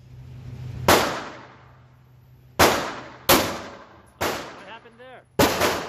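Handgun shots at an indoor range, each sharp crack followed by a long echoing tail. The first comes about a second in, then three more spaced out over the next few seconds, and a quick pair near the end.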